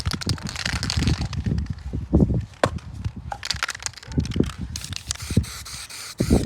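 Wind buffeting the microphone in irregular gusts, with spells of hiss from an aerosol can spraying satin black paint onto a car's rear trailing arm, and a few sharp clicks.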